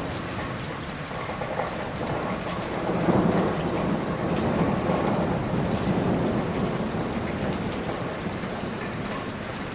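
Thunderstorm: steady rain with a low rolling rumble of thunder that swells about three seconds in and fades away slowly.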